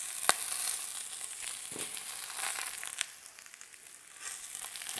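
Leg of lamb sizzling in its rendered fat in a hot stainless steel pot, a steady frying hiss. A sharp knock comes about a third of a second in and another at about three seconds; after the second, the sizzle drops away for about a second before it returns.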